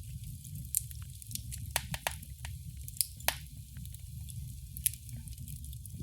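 Wood fire crackling: irregular sharp pops and snaps over a steady low rumble, with two louder pops a little after the halfway point.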